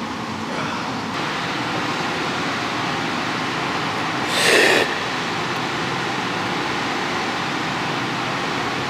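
Steady air-conditioning and ventilation noise fills the room, with one short noisy burst lasting about half a second a little past the middle.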